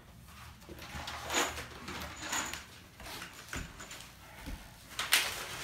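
Wooden toddler-bed parts and hardware being handled during assembly: irregular rustling and scraping, with a sharp knock about five seconds in.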